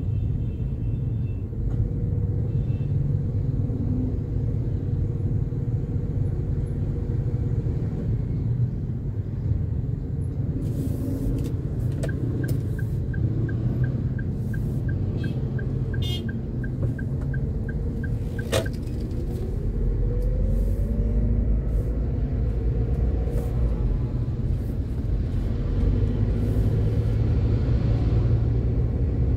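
Low, steady rumble of a car's engine and road noise heard from inside the cabin while driving slowly in traffic. About halfway through comes a run of faint, even ticks at about three a second, followed by a single sharp click and then a short rising whine.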